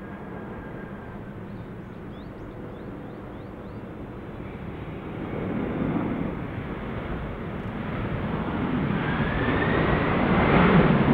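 Mongolian Airlines Boeing 767 jet engines after touchdown, a steady jet rumble that grows louder through the rollout. In the last few seconds a rising whine comes in as the engines spool up, typical of reverse thrust being applied to slow the airliner.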